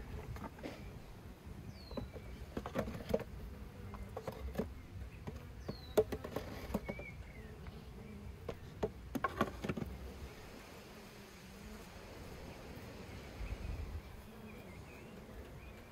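Honeybees buzzing around an open wooden beehive. Wooden knocks and clatter from hive boxes and frames being set down and handled come through the first ten seconds or so, and a few short, falling bird chirps sound over it.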